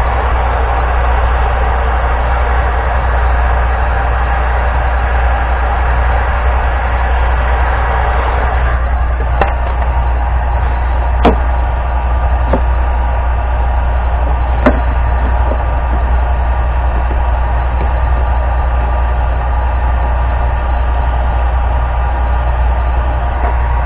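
Heat gun running steadily with a low hum, its blowing hiss dropping away sharply about eight seconds in. A few sharp clicks follow as the heat-softened PVC is handled.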